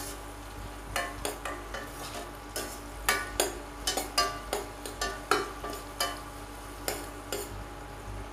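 A spatula stirring chopped tomatoes, green chillies and onions in hot oil in a metal pan, with repeated irregular clinks and scrapes against the pan over a low sizzle of frying. The strokes begin about a second in and come about two or three a second.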